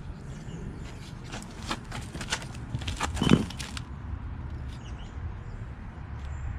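A stick spreading and pressing Bondo body filler into a rust hole in a steel door: a run of short scraping clicks and taps in the middle, with one louder knock a little over three seconds in, over a low steady rumble.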